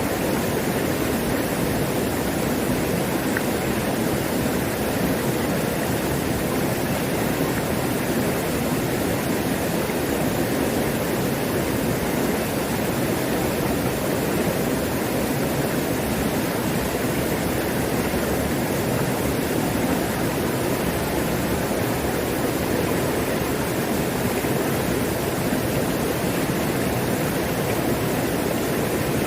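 Mountain stream in full flow: a steady, unbroken rush of water.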